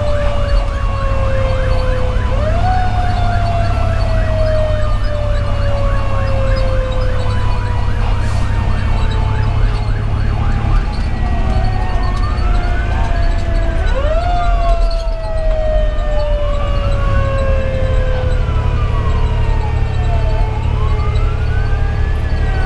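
Fire engine sirens heard from inside the cab: a Federal Q2B mechanical siren coasting down in long, slow falling tones, wound quickly back up now and then, layered with an electronic siren that pulses rapidly at first and from about halfway on sweeps up and down in a steady wail. Under both runs the steady drone of the truck's Detroit Series 60 diesel.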